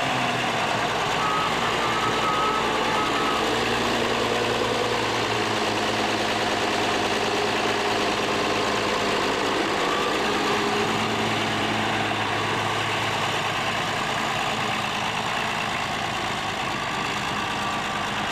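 The six-cylinder diesel engine of a 1953 Oliver 88 tractor running steadily.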